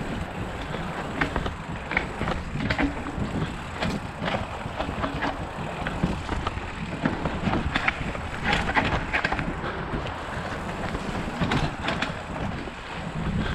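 Mountain bike rolling over a rough, rocky dirt trail: a steady rumble of tyres on the ground, with irregular clicks and knocks from stones and the bike rattling.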